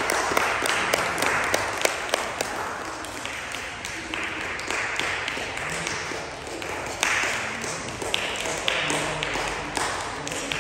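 A small audience applauding: a steady patter of many hand claps that swells again about seven seconds in.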